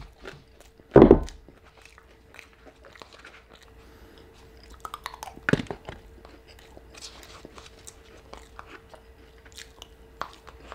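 Close-miked chewing and crunching of a spoonful of food eaten from a cup, with small clicks throughout. A loud thump comes about a second in, and another knock about five and a half seconds in.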